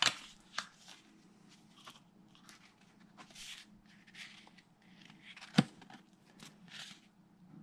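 Soft rustling of paper packaging being handled, with a sharp tap right at the start and another about five and a half seconds in, over a faint steady hum.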